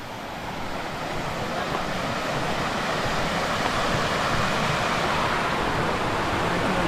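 Water stream rushing steadily, swelling a little over the first couple of seconds and then holding.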